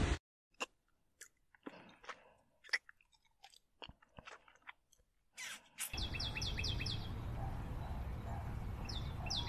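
Faint, scattered clicks and crackles of someone eating rice and sambal by hand and chewing. About six seconds in a steady hiss begins, with two quick runs of high, bird-like chirps, the second near the end.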